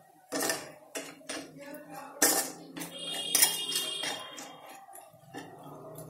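Metal spoon scraping and clinking against a stainless steel pan, stirring grated raw mango and salt in irregular strokes, with a brief metallic ring about three seconds in.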